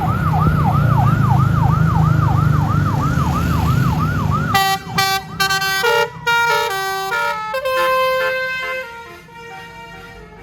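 A tourist bus's horn system sounding: first a fast warbling siren-like chirp, about three a second, over the bus's engine rumble. About four and a half seconds in it switches to the multi-tone basuri telolet horn playing a short melody, which fades near the end.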